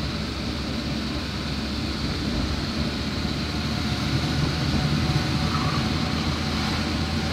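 Steady engine and road noise of a vehicle driving along, heard from inside its cabin: a low, even engine hum under tyre noise.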